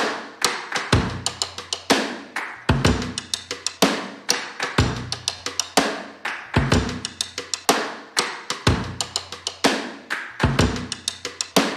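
Outro music: a steady drum beat of sharp hits with a deeper thump about every two seconds, with no melody.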